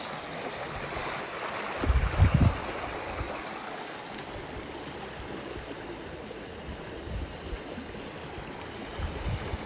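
Creek water running and splashing, with a brief cluster of low bumps about two seconds in.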